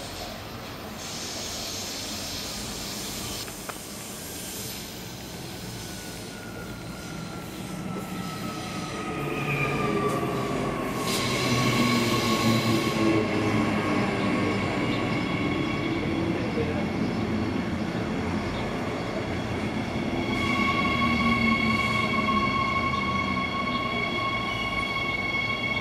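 Six-car Queensland Rail SMU 260 electric multiple unit pulling into the platform and slowing to a stop: a whine that drops in pitch and then holds as it slows, over the rumble of the carriages, which grows louder about ten seconds in. High steady wheel squeal joins in after that and is strongest near the end.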